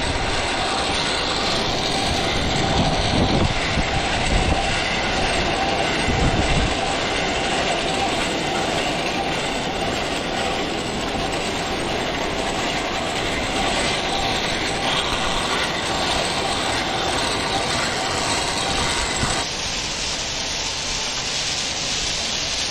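Pulley wheels of a zipline bike rolling along a steel cable: a steady rolling, rushing noise with a faint steady whine. It gets a little quieter near the end.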